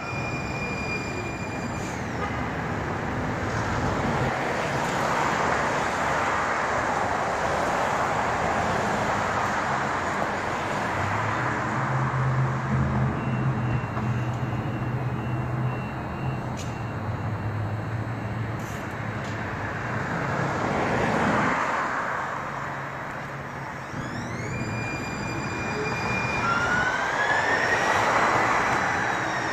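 New Muni light rail train (Siemens S200 LRV) running on the track: a steady rumble with a low hum partway through. Near the end its electric traction drive gives thin whining tones that step up in pitch, and one whine climbs and then falls away.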